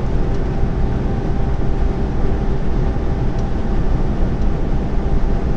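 Lorry cab interior at motorway speed: the steady drone of the engine and tyre and road noise, heard from inside the cab.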